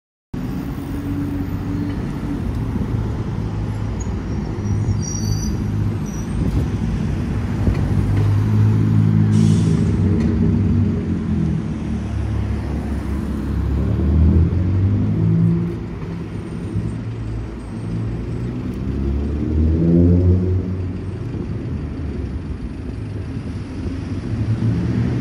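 Road traffic at a junction: cars driving past with their engines making a steady low rumble. About twenty seconds in, one engine rises in pitch as it accelerates.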